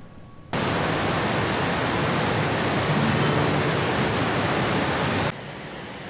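Steady rush of falling water from a waterfall. It cuts in suddenly about half a second in and drops off abruptly near the end to a quieter rush.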